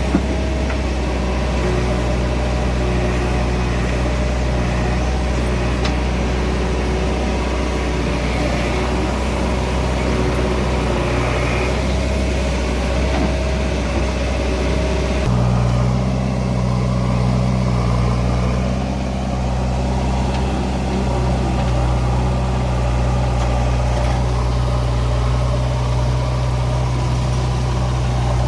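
An engine running steadily, a low drone whose tone shifts to a different pitch about halfway through.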